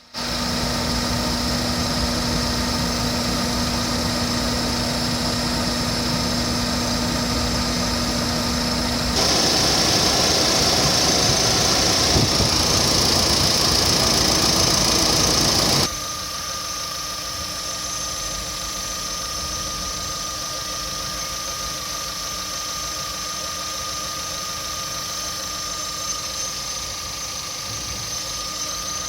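Engine running steadily with a constant high-pitched whistling ring. The air conditioner is switched on for the first two recorded stretches, and off from about 16 s in, where the overall sound is quieter. There is a cut at about 9 s and another at about 16 s.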